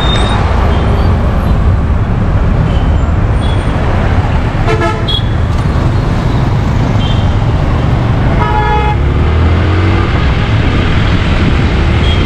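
Motorcycle engine running under way with steady wind and traffic noise, while other vehicles' horns honk, most plainly twice: about five seconds in and again about eight and a half seconds in.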